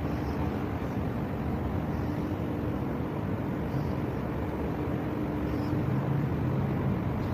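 Steady low mechanical rumble with a faint low hum, from a large cruise ship's engines and machinery as she passes close by.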